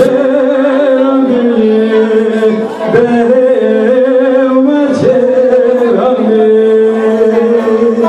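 Two men singing a Kurdish folk song into microphones through a small PA, in long held notes that step in pitch every second or two, with a bağlama (saz) played alongside.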